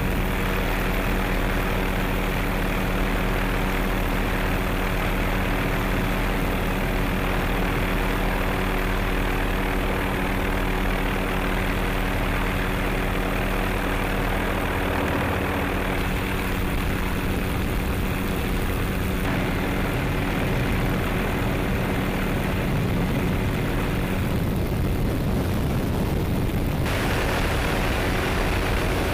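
MD 530F Cayuse Warrior light helicopter in flight: a steady engine and rotor drone with several held tones. The sound changes slightly a couple of times.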